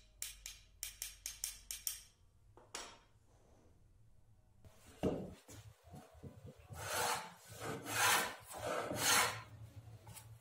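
A rapid series of light hammer taps, typical of setting the iron of a wooden moulding plane. From about halfway, the wooden moulding plane shaves along a board in several long, rasping cutting strokes.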